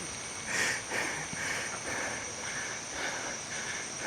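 Rainforest insects: a steady high-pitched drone under a rhythmic chirp repeating about two to three times a second.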